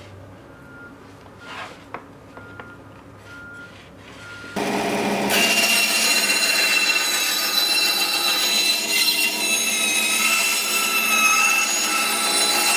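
A power tool working wood starts up about four and a half seconds in and runs steadily, with a high whine that wavers in pitch as it cuts.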